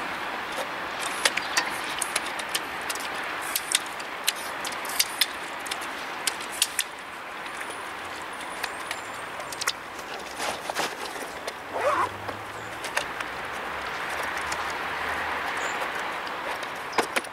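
A freight train rolling away over station tracks and points: a steady rumble with sharp wheel clicks over rail joints, thinning out after about seven seconds. A brief squeal about twelve seconds in.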